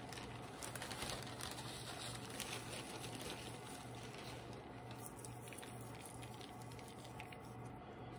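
Plastic bag of dried flower petals rustling and crinkling as hands dig into it, with small scratchy crackles, busiest in the first few seconds. A low steady hum runs underneath.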